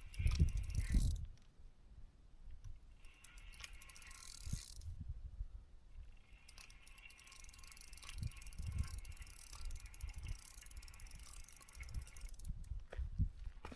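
Fixed-spool fishing reel being wound, a fast ratchety whirr in two stretches, a short one and then a longer one of about six seconds, over low handling thumps.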